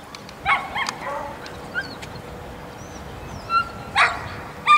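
A dog barking in short, high yips: two about half a second in, then several more near the end.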